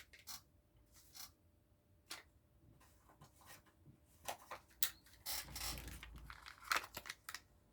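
Faint, scattered clicks and light rustling of small plastic toy pieces and wrappers being handled, with a few sharper ticks about four to five seconds in and again near the end.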